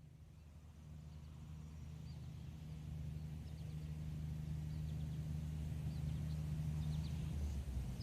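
A steady low hum that grows gradually louder, with small birds chirping faintly over it.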